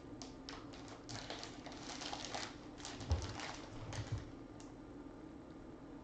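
Crackling and clicking of a clear plastic bag around a graded card slab as it is handled, with a quick run of small crinkles early and two dull knocks about three and four seconds in.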